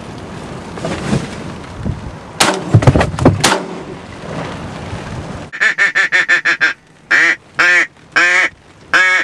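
A few sharp loud bangs about two and a half seconds in, then duck quacking in mallard style: a fast chattering run of short notes, then five long, loud quacks close to the microphone.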